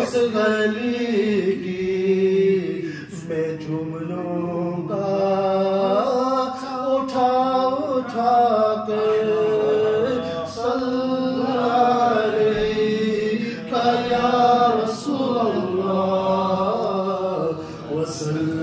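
A man chanting an Urdu naat into a microphone, one voice in long held notes that glide up and down, with short breaks between phrases.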